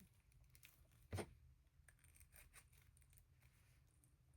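Near silence with faint handling sounds of small doll parts being worked by hand, and one brief soft knock about a second in.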